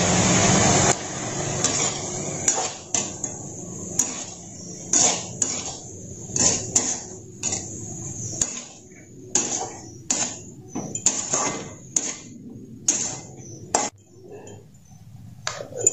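A metal spatula scraping and knocking against a metal kadai (wok) while stirring a mushroom and onion filling: irregular clinks and scrapes, one or two a second. A steady hiss stops about a second in.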